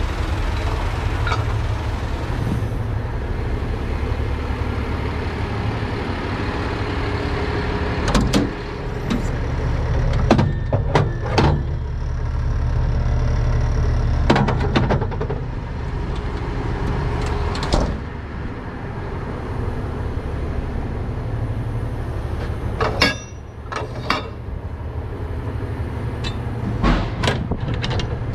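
Truck engine idling steadily, with a series of sharp metal clanks and knocks as steel wheel-lift fork adapters are handled in their rack.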